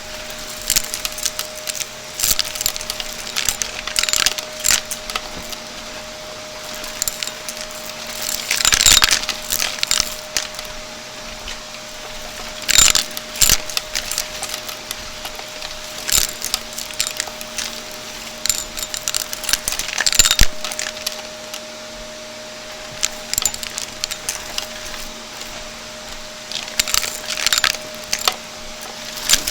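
Vacuum cleaner running with a steady hum, with bursts of crackling and clicking every few seconds as crunchy debris is sucked up.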